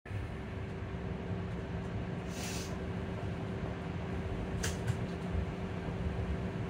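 Electric bus heard from inside the cabin: a steady low drone with a constant whine running through it. A short hiss comes about two and a half seconds in, and a sharp click just under five seconds in.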